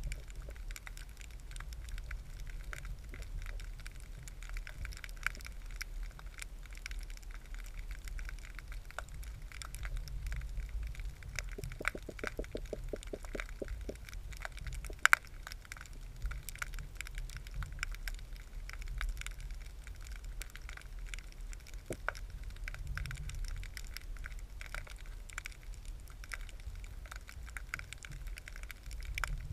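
Underwater ambience picked up by a submerged camera: a continuous crackle of fine clicks over a low rumble. About twelve seconds in comes a short run of rapid low knocks, about five a second, and a few seconds later a single sharp click stands out.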